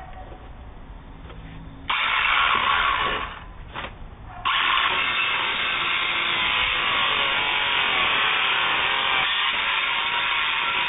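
Electric power saw cutting through fiberboard: a short run about two seconds in, a brief pause, then steady cutting from about four and a half seconds in.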